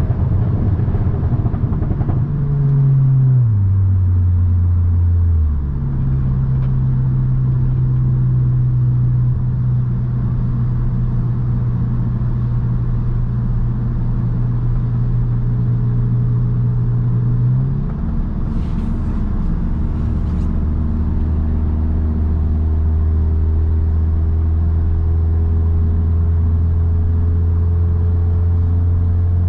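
2017 Audi S3's turbocharged 2.0-litre four-cylinder engine and exhaust under way. The engine note falls over a few seconds near the start, jumps back up and holds steady, then drops to a lower steady drone about two-thirds of the way through.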